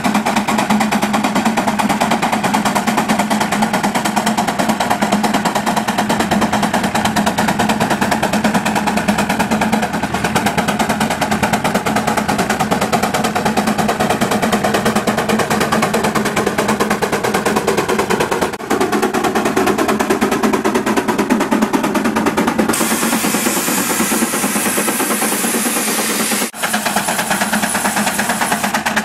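Steam traction engine pulling a plow, its exhaust chuffing in a fast, steady clatter. A high hiss joins in for a few seconds about three-quarters of the way through.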